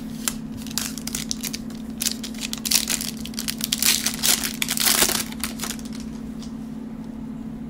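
Plastic wrapper of a Panini Prizm basketball card cello pack crinkling and tearing as it is ripped open by hand: a run of sharp crackles that thickens in the middle and dies away about five seconds in.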